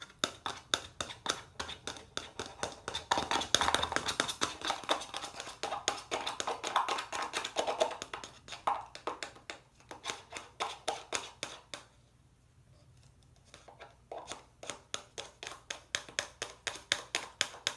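Plastic knife stirring a thick soap-and-shampoo mixture in a plastic yogurt container, clicking and tapping against the sides about four times a second. The stirring pauses for about two seconds about two-thirds of the way through, then starts again.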